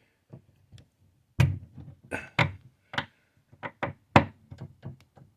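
Irregular sharp clicks and knocks of a screwdriver working at the metal screws of a loose kitchen cupboard door hinge, the loudest about a second and a half in and again near four seconds.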